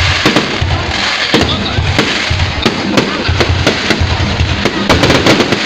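Fireworks display: aerial shells bursting overhead in a rapid, continuous string of sharp bangs over a steady crackle, with deep booms underneath.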